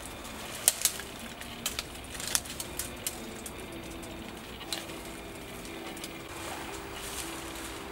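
Dry twigs and branches snapping and crackling as they are handled, a few sharp clicks mostly in the first three seconds, with a faint low steady tone behind them.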